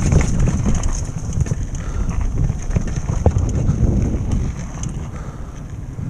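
Downhill mountain bike rolling over a dirt trail: wind on the helmet camera's microphone mixed with the rumble and rattle of the tyres and bike over rough ground, easing somewhat near the end.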